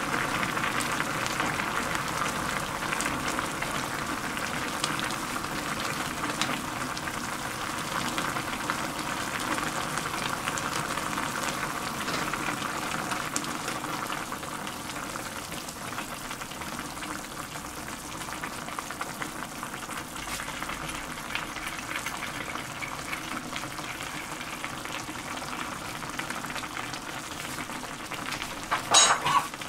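A pot of ramyeon broth boiling steadily, a continuous bubbling hiss, with a wooden spatula stirring through the noodles at times. A brief louder knock near the end.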